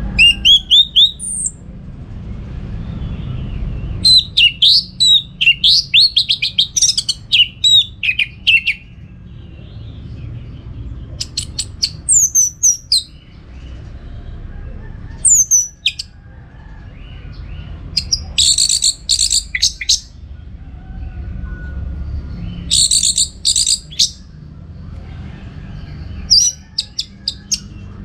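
Orange-headed thrush singing in loud bursts of varied high whistles and fast repeated notes, with pauses of a few seconds between phrases. A steady low hum runs underneath.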